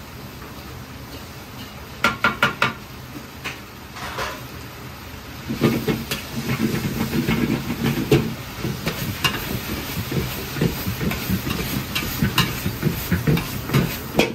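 Wok stir-frying over a gas burner. Under the steady hiss of the burner, a metal ladle taps the wok several times in quick succession about two seconds in. From about halfway it turns to the busy clatter and scrape of the ladle stirring and tossing the food in the hot wok, with hissing and sizzling.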